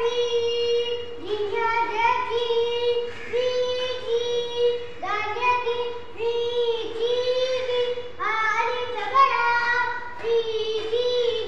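A young boy's high voice chanting Noorani qaida letters and syllables aloud in a sing-song. He holds each syllable on a steady note, with short breaks between them.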